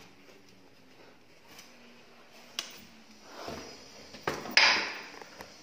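Handling noises during the fitting of a glass shower door: a few sharp clicks and knocks with two short rushing, scraping noises, the second and loudest about a second before the end.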